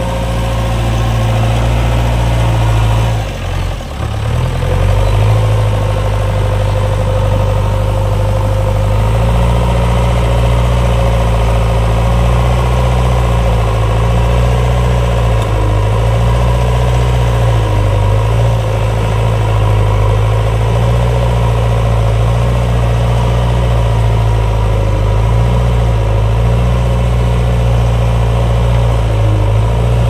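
JCB 3DX backhoe loader's diesel engine running steadily as it pushes soil with its front loader bucket. The note dips briefly about three to four seconds in, then holds steady with small wavers.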